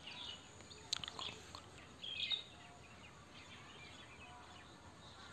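Faint background ambience with a few short, faint chirps, the loudest just past two seconds in, and a single sharp click about a second in.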